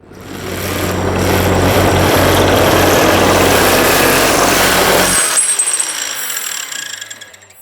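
A loud, steady machine noise with a low hum under it, starting abruptly, cutting off about five seconds in and then fading away.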